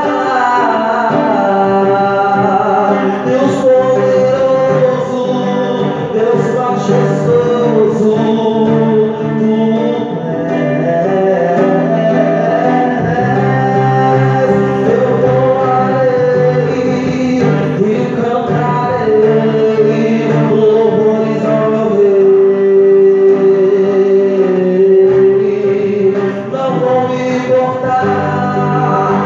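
Live gospel worship song: a man singing into a microphone over electric guitar, both amplified through a PA, with long held notes.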